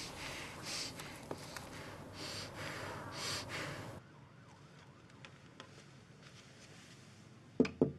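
Heavy, shaky breathing and sniffing in short airy gusts. After that, a quiet room with faint ticks, then three sharp knocks in quick succession near the end.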